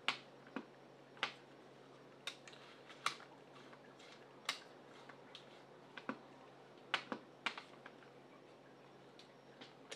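Irregular sharp clicks and light taps, about a dozen spread unevenly, as small objects are handled.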